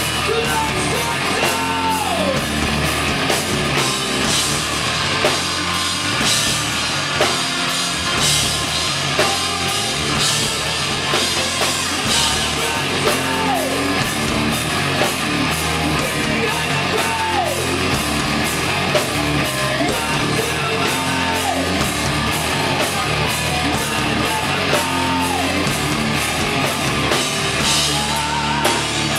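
A live rock band playing loud, with drum kit and electric guitar, and a short falling note repeated about every two seconds.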